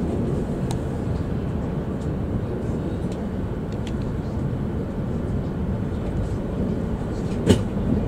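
Steady low rumble of a Shinkansen bullet train heard from inside the passenger cabin while it moves at low speed past a platform. A single sharp knock comes near the end.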